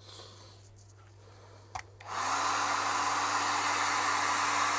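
A hot-air blower switches on about two seconds in: its fan spins up with a short rising hum that settles to a steady pitch, then it runs with a loud, even rush of air. A single small click comes just before it starts.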